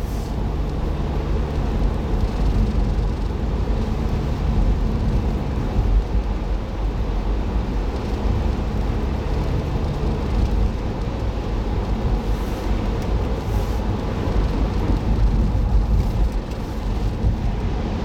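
Car driving, recorded by a dashboard camera: steady road and engine rumble with a noisy haze of tyre sound.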